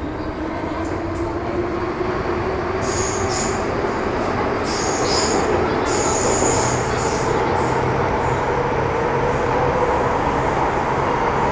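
Inside a Metro Cammell M-Train car on the move, the GEC GTO chopper traction drive whines with tones that rise slowly in pitch over steady wheel and rail noise as the train gathers speed. Brief high squeals come a few seconds in.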